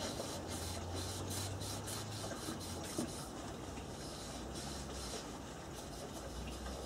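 Cloth rag rubbing wood balm into a yew picture frame, in runs of quick back-and-forth strokes.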